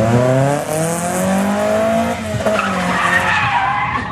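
Drift car engine revving hard, its pitch rising for about two seconds and then dropping. From about three seconds in the tyres squeal as the car slides sideways into a drift.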